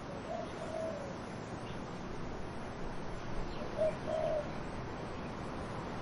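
A dove cooing in two short phrases of two notes each, the second note of the first phrase sliding down. One phrase comes just after the start and one a little past the middle, over a steady rush of wind in trees.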